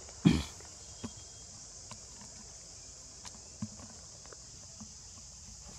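Steady high-pitched insect drone, with one sharp thump about a third of a second in and a few faint clicks and taps after it.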